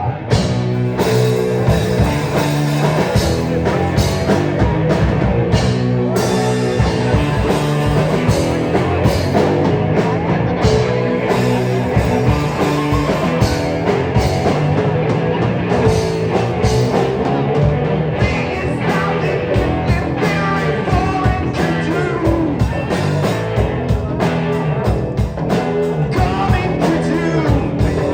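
Live rock band playing, with guitar, bass and drums and a singing voice; the music starts right at the beginning, after talk.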